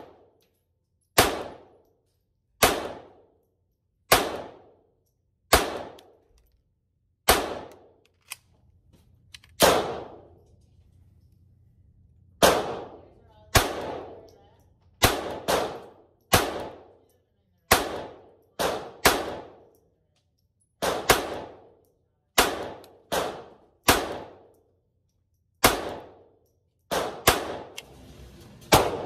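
Glock 44 .22 LR pistol firing round after round, about one shot a second with some quick doubles, each sharp crack trailed by a short ringing echo.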